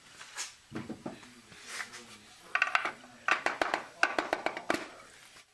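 Metal clicking and clinking as a steel hand tool and parts knock together inside a 6R80 automatic transmission's aluminium case. There is a dull knock about a second in, then three bunches of rapid, ringing clinks from about two and a half seconds in.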